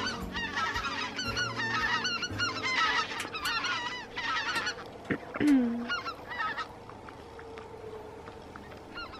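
A flock of birds calling, with many short overlapping calls that thin out and grow quieter after about four seconds.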